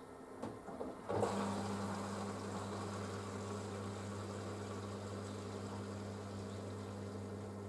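Panasonic front-loading washing machine partway through a wool cycle: a few soft knocks, then about a second in a steady electric hum starts together with rushing water and runs on evenly.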